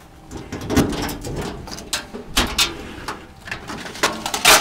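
Irregular knocks, clicks and rustles of hard objects being handled, loudest in a cluster near the end.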